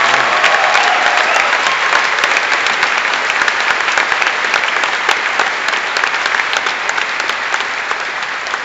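A large audience applauding, dense and loud, slowly dying down toward the end.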